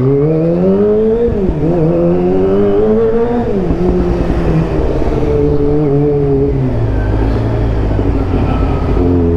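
Kawasaki ZX-25R's inline-four engine pulling away and accelerating through the gears. The pitch climbs, then drops at an upshift about a second and a half in, climbs again and drops at a second upshift about three and a half seconds in, then holds at steadier revs.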